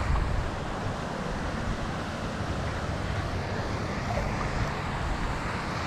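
Steady wind noise on the microphone: a low, fluttering rumble with a hiss above it.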